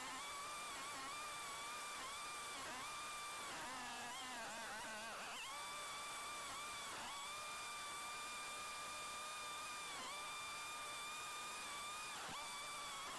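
Snowmobile running along a snowy trail: a steady high-pitched drone that wavers about four seconds in and sags briefly in pitch twice near the end as the throttle eases.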